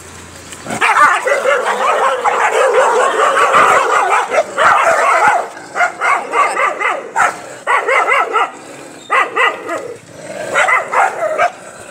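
Stray dogs barking and yipping. There is an unbroken run of yelping from about a second in to about five seconds, then short separate barks and yips.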